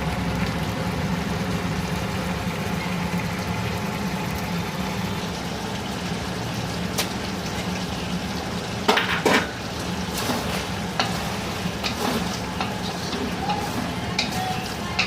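Chicken gravy sizzling as it fries in a pan, stirred with a spoon that clicks and scrapes against the pan now and then, with a louder clatter about nine seconds in.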